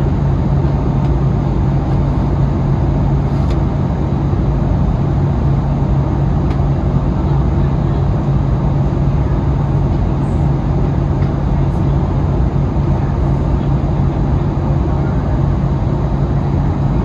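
Steady cabin noise inside an Airbus A320neo-family airliner: engine and airflow running evenly, with a strong low hum and no change in pitch or level.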